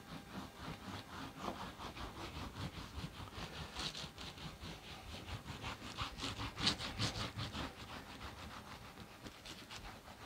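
Felting sander tool rubbed over wet, soapy wool fibres in quick repeated strokes: a rhythmic scrubbing, loudest around the middle, as the fibres are worked to start them felting.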